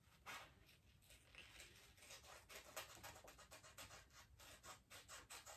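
Scissors cutting sublimation paper: a faint run of quick snips, several a second, growing denser about two seconds in.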